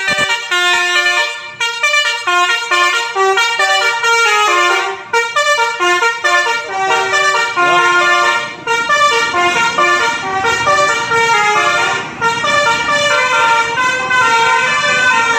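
Bus's Basuri telolet horn, a multi-tone melody air horn, playing a fast tune of stepped notes without a break. From about halfway through, the running noise of the passing bus grows underneath.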